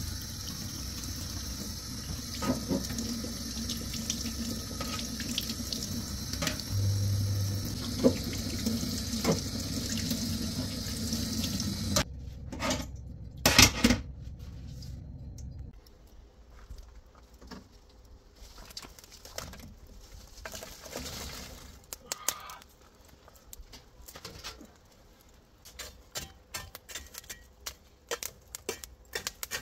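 Water running steadily for about twelve seconds, then cut off abruptly. A few sharp knocks follow, then scattered light clicks and handling noises.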